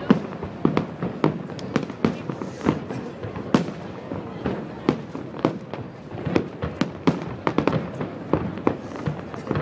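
Aerial firework shells bursting in a rapid, irregular run of sharp bangs, about two a second.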